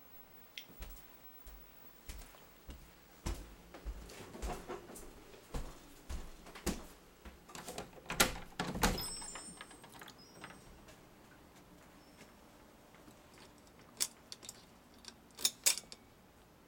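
Scattered footsteps and handling knocks, then a door being unlocked and opened about eight seconds in, the loudest clatter, with a brief high squeak. A few more sharp clicks come near the end.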